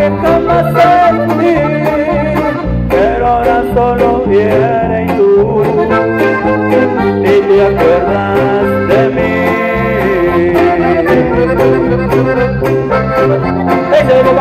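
Live norteño band playing: accordion with trumpets, electric bass and drums.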